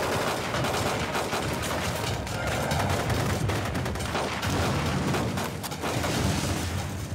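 Battle sound effects: continuous dense gunfire, machine-gun bursts mixed with pistol and rifle shots, with explosions.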